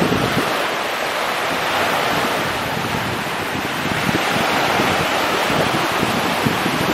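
Small sea waves breaking and washing up a sandy beach in a steady rush of surf, with wind buffeting the microphone in low rumbling gusts.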